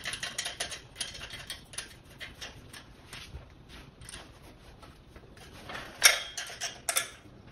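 Light clicks and ticks of a screw being turned into the threaded hole of a table frame's pipe during assembly, dense at first and thinning out, with two sharper clacks near the end.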